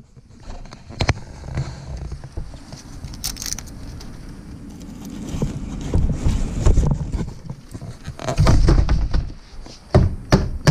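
A heater blower motor's squirrel-cage fan being shaken and knocked over a plastic trash bag to empty leaves and debris out of it: handling noise and rustling plastic with irregular knocks, the loudest coming in a quick cluster near the end.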